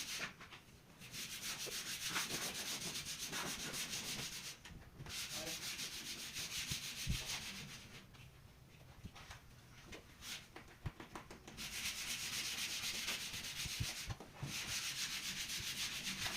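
Wood being sanded in rapid scratchy strokes, in several stretches of a few seconds each with brief pauses between them.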